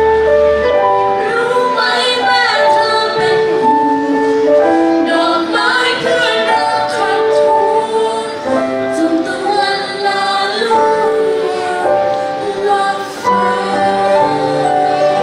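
A song: singing over an instrumental backing, a steady melody of held notes.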